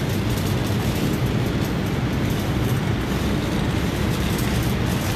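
Steady rushing drone of a walk-in cooler's overhead refrigeration units blowing cold air, heavy in the low end and unchanging throughout.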